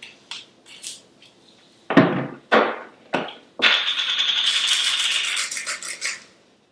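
A few knocks as kitchen items are handled, then about two seconds of rapid clicking rattle from a seasoning grinder or shaker being worked over the salad, trailing off near the end.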